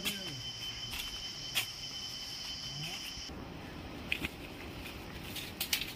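A steady, high-pitched insect drone that cuts off suddenly a little past halfway, followed by scattered crackles and snaps of footsteps on dry leaf litter and twigs.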